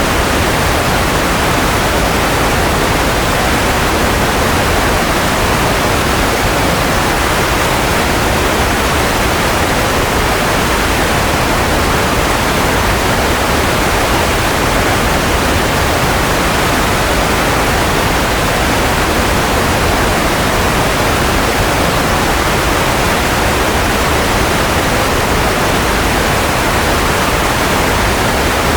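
Steady white noise for lulling a baby to sleep: an even, unchanging hiss spread from low to high pitch, with no tones or breaks.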